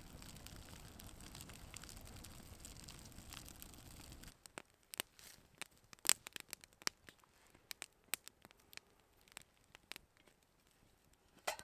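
Wood campfire burning: a steady hiss with dense crackling for about four seconds, then a smaller fire giving sparse, sharp pops and crackles, with one louder knock near the end.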